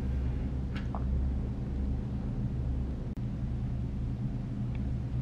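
Steady low rumble of background noise, with a faint short rustle about a second in.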